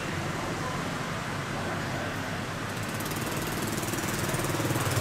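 Street traffic with motorbike engines running; a low engine hum grows louder near the end.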